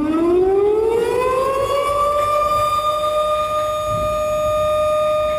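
Outdoor tornado warning siren winding up: its wail climbs in pitch over the first second or two, then holds a steady high tone.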